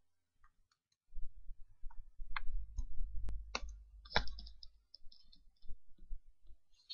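A few sharp computer mouse clicks over a low rumble of handling noise on the microphone.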